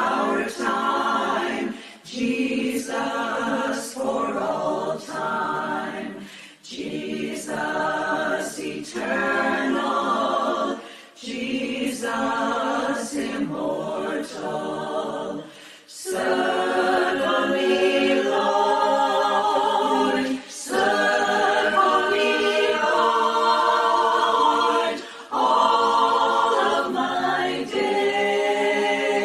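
Unaccompanied voices singing a sacred song in harmony, a cappella. The singing comes in short phrases with brief breaks between, then grows louder and fuller in longer phrases about halfway through.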